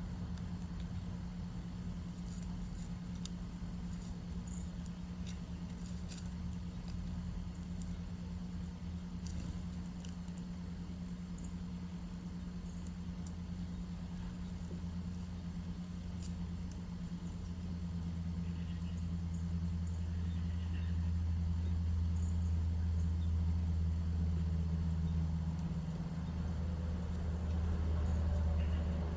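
A steady low mechanical hum that grows louder about two-thirds of the way through, with faint scattered ticks and a few faint high chirps over it.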